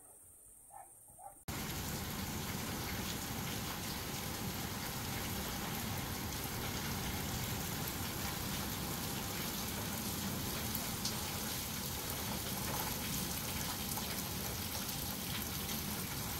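Heavy rain falling steadily, a dense even hiss that starts abruptly about a second and a half in after near-quiet.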